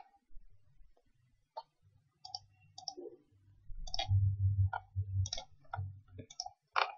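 Computer mouse clicking about ten times at uneven intervals, some in quick pairs, with a low hum in the middle.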